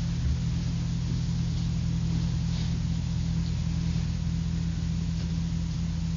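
A steady low hum with a layer of hiss, unchanging throughout.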